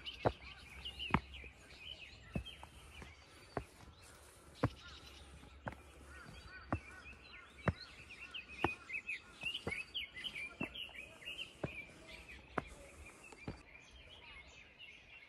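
Footsteps, about one a second, on an overgrown footpath, with birds chirping around in many short calls that grow busier past the middle.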